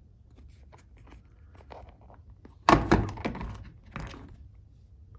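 Handling noise from a screwdriver bit set in its plastic case: light clicks, then a loud knock a little under three seconds in with a short rattle after it, and a second knock about four seconds in.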